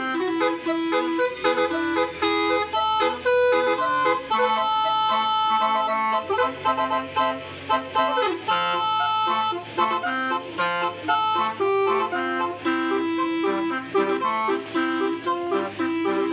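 A reedy melodic tune of quickly changing notes over a low bass line, playing without a break.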